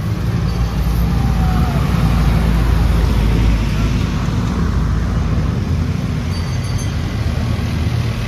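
Street traffic: motor vehicles running and passing close by, with a steady low engine sound that is loudest in the first half. Faint voices of passers-by sit in the background.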